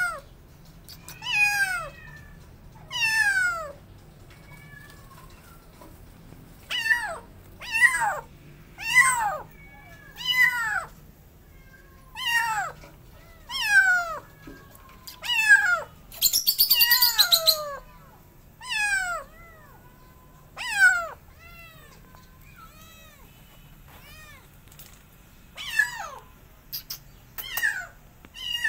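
A two-month-old feral kitten meowing loudly over and over, each call falling in pitch, one every second or two. About halfway through comes one longer, harsher hiss.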